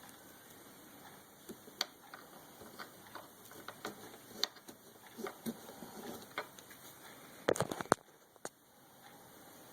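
Butane torch flame held to an extension cord: a faint steady hiss with scattered small clicks and crackles, and a quick run of sharp clicks about seven and a half seconds in.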